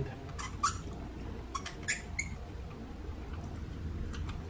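A few short squeaks and clicks from a spark plug being turned into its cylinder-head thread by hand, with fainter ticks later on.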